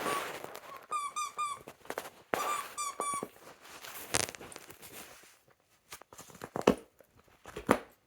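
A dog's squeaky toy squeaking as the dog chews it, in two quick runs of three short squeaks. In the second half, a few sharp knocks.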